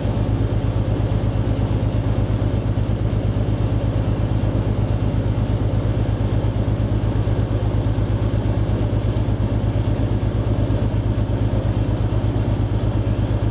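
Motor ship's diesel engine running steadily with a low, even, rapid throb.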